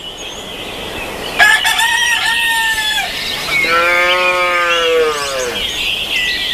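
A rooster crows about a second and a half in. A cow then moos once in a long call that rises and falls, while small birds chirp throughout.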